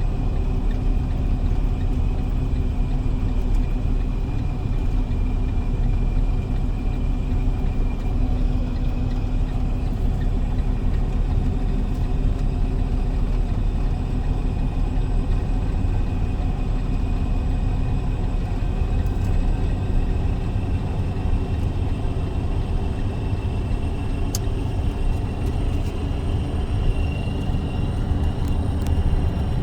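Box truck driving along, its engine and road noise making a steady low rumble with a faint constant high whine over it.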